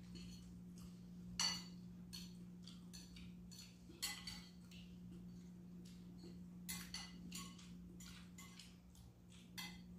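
Metal spoons ticking and scraping against white disposable bowls as two people eat: a dozen or so light clicks scattered through, the sharpest about one and a half and four seconds in, over a steady low hum.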